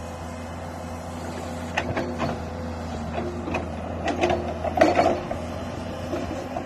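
Komatsu PC210 LC hydraulic excavator's diesel engine running steadily at idle, with faint hydraulic tones and a scatter of clicks and knocks, the loudest about five seconds in.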